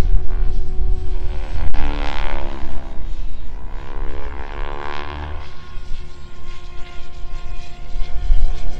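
Electric SAB Goblin Kraken 580 RC helicopter in flight, its main rotor blades and motor giving a loud pitched buzz and whine. The pitch bends up and down in the middle as it swings through manoeuvres, then settles into a steadier drone for the last few seconds.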